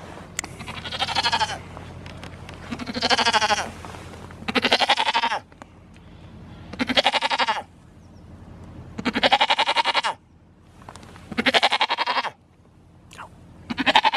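A goat bleating over and over: about seven loud, quavering bleats, each about a second long, coming roughly every two seconds.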